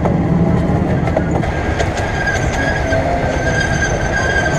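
Miniature railway train cars rolling on the rails, with steady wheel clatter and rumble. A steady high-pitched squeal from the wheels on the curving track grows stronger about halfway through.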